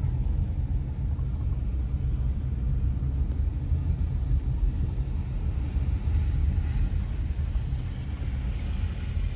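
Steady low road rumble inside a moving car: tyre and engine noise heard from the cabin.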